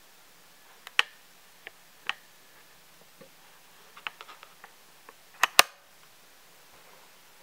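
Irregular sharp clicks and ticks: single ones near the start, a quick run of small ones in the middle, and the loudest two close together about five and a half seconds in.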